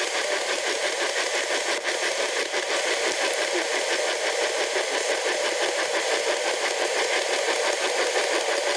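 P-SB11 dual-sweep FM spirit box scanning through radio frequencies, giving a steady, rapidly chopping radio static.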